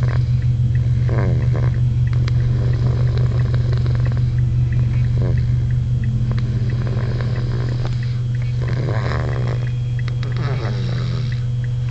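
Snoring, one breath roughly every three to four seconds, over a loud steady low hum.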